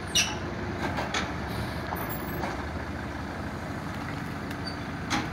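Diesel engine of a Komatsu WB93R backhoe loader running steadily. A sharp metallic clank comes just after the start, with a few lighter knocks about a second in and near the end.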